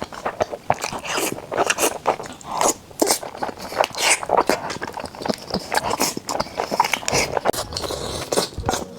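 Close-miked eating sounds: a person biting and chewing food in a quick, irregular run of short crunches and mouth sounds.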